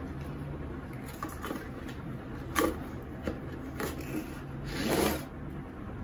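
A cardboard product box being handled and opened: several sharp clicks and taps of the flaps and packaging, then a longer scraping rustle about five seconds in as the bulb is slid out of the box.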